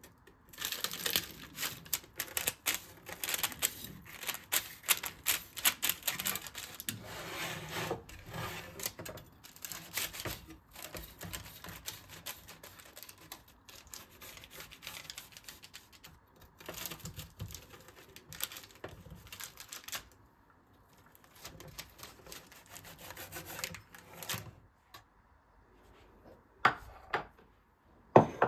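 Rapid, irregular run of light sharp clicks and taps that thins out about twenty seconds in, with a few louder single taps near the end.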